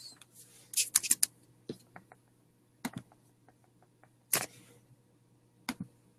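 Scattered sharp clicks and taps at a computer, about eight of them spread over several seconds, over a faint steady low hum.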